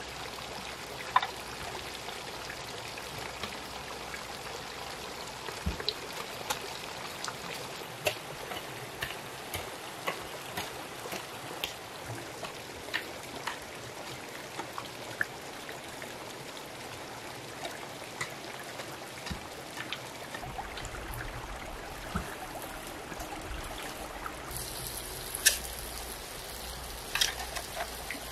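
Water running steadily, with scattered light clicks and a few sharper knocks, the loudest about a second in and near the end.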